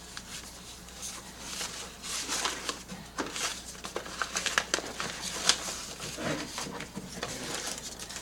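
Rustling and light clicking of a stack of cards and their packaging being handled and put back together, a run of irregular small taps and crinkles.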